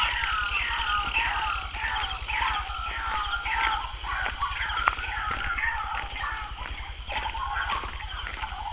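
Night-time chorus of insects and other small animals: a steady high insect trill under rapid, repeated short falling calls that slowly grow fainter. A single sharp click about five seconds in.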